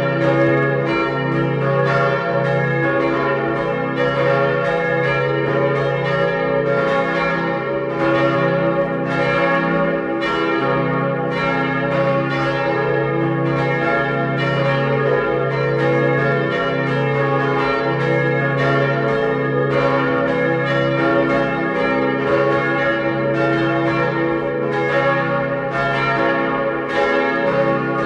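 Simulated full peal of four church bells tuned to A-flat, B-flat, D-flat and F, built from composed bell tones to recreate the cast steel bells cast by Schilling & Lattermann in 1922. The bells ring together in a continuous run of overlapping strikes, with a steady hum beneath.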